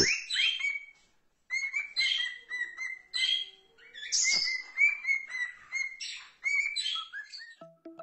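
Pet cockatiels chirping: a run of short, quick chirps that breaks off briefly about a second in, then carries on.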